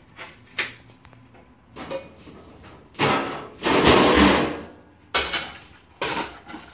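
Kitchen cookware clatter: a frying pan and its lid handled and set down on an electric coil stove. There are a few sharp knocks, with a longer, louder rattling clatter in the middle.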